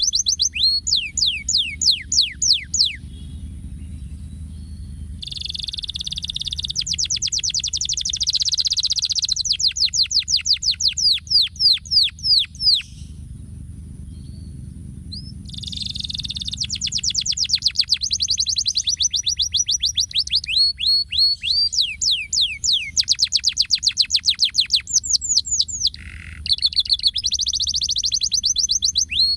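Domestic canary singing: long phrases of fast trills and rapidly repeated falling notes, broken by two short pauses.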